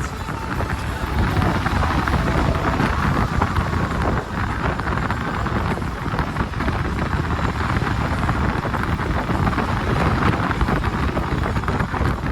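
A vehicle in motion heard from on board: steady engine and road noise with wind buffeting the microphone.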